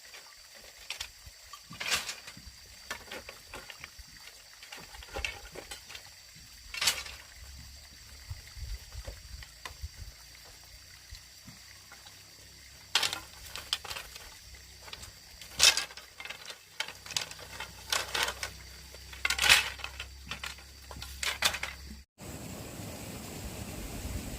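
Irregular small water splashes and trickles, with scattered sharp clicks and knocks. Near the end it cuts abruptly to a steady rushing noise.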